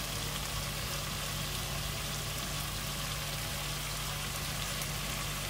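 Lamb strips and shallot frying in tapenade in a pot: a steady sizzling hiss over a steady low hum.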